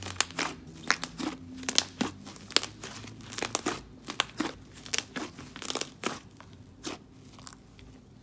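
Soft, wet-textured fluffy clay slime being squished, folded and stretched by hand, giving irregular sticky crackles, pops and clicks as air trapped in it bursts.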